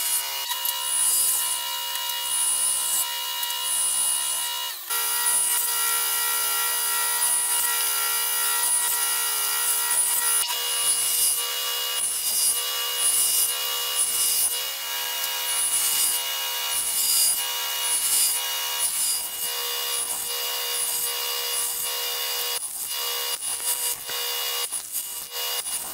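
Table saw running steadily while finger-joint slots are cut in cedar boards on a box-joint jig, with a short cutting rasp about once a second as each slot is sawn.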